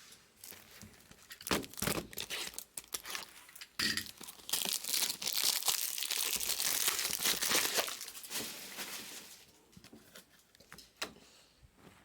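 Foil trading-card pack wrappers being torn open and crinkled, with irregular crackling that builds to a dense stretch of tearing in the middle and then dies away to a few faint clicks.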